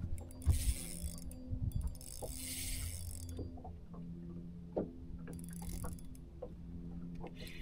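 Fishing reel cranked in short spells of about a second each, with small mechanical clicks, over a steady low hum from the boat's electric trolling motor.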